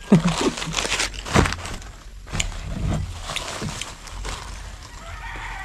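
Brown paper bag rustling and crinkling as it is pulled open and handled, with irregular crackles.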